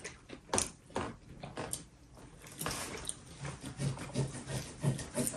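Table knives and forks clinking and scraping on plates as steak is cut, a few sharp clicks about half a second, a second and nearly three seconds in, with soft chewing noises between.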